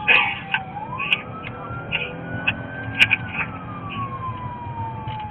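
Emergency vehicle siren in a slow wail, its pitch dipping low, climbing back up and falling away again, heard from inside a moving vehicle over the low rumble of its running. A few short irregular clicks cut in, the sharpest about three seconds in.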